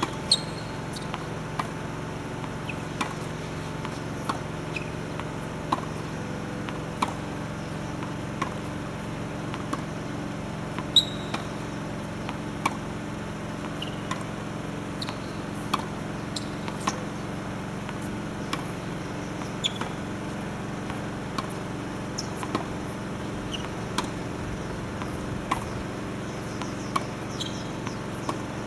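Tennis ball being hit back and forth in a practice rally: a sharp racket pop about every second and a half, over a steady low hum.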